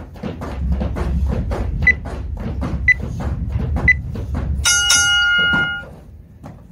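Battle ropes slapping the gym mat in a quick, even rhythm over a low rumble. Over them an interval timer gives three short beeps a second apart, then a longer buzz of several tones about five seconds in that ends the round, and the slapping stops.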